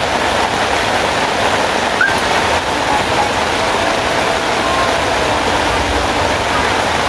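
Steady hiss of rain falling, with a brief faint chirp about two seconds in.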